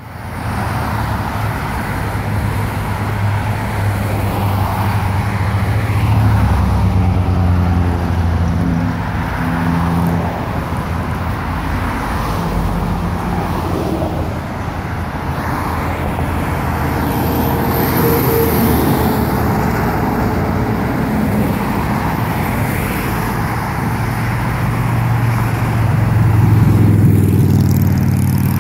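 Busy road traffic, with cars passing steadily and the low drone of heavy diesel trucks. A Mack MRU refuse truck with a Heil body approaches about halfway through, and the engine drone is strongest at the start and again near the end.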